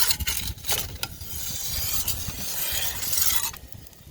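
Metal scraping and rubbing with a few sharp clicks from handling the wood-fired pizza oven and its peel, over a rushing hiss that cuts off about three and a half seconds in.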